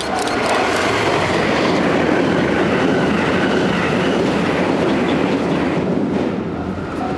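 787 series electric express train passing a level crossing at speed, a loud rush of wheel and rail noise with a clickety-clack that eases off about six seconds in. The crossing's warning bell rings about twice a second at the start, is drowned out while the train goes by, and is heard again near the end.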